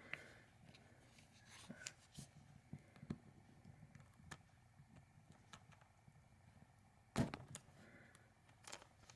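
Faint, scattered clicks and taps of a glovebox handle and lock assembly being handled and pulled apart, with the loudest short clatter about seven seconds in.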